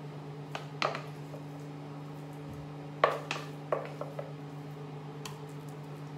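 A spoon knocking and scraping against a metal saucepan as mash is served onto a plate: a handful of short clinks, the loudest about three seconds in, over a steady low hum.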